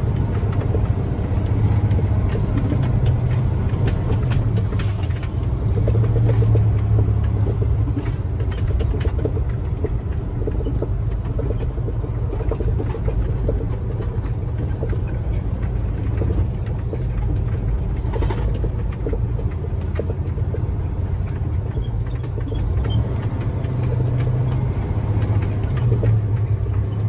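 International semi truck's diesel engine running steadily, heard from inside the cab, with scattered knocks and rattles as the truck bounces over a rough, muddy road.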